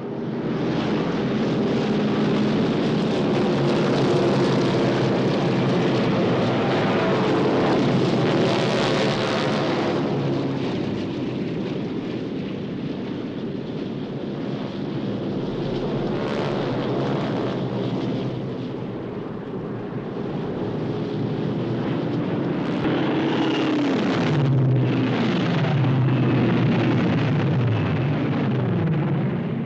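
Jet engines of an airliner, a Malaysia Airlines Boeing 737, running as it moves along the runway: a steady rushing engine noise. Near the end a whine falls in pitch several times as the aircraft passes.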